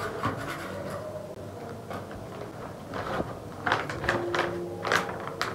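Paper rustling and crinkling as the slashed strips of a paper sewing pattern are folded over and pressed flat by hand, with several short rustles in the second half.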